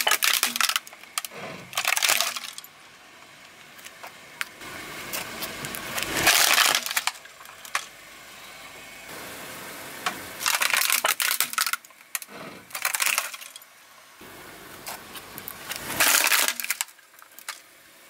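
Plastic toy army vehicle cracking and crunching under a car tyre as it is crushed, in about six separate bursts of snapping and breaking with quieter gaps between.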